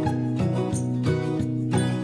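Instrumental background music with a steady, even run of notes over held lower tones.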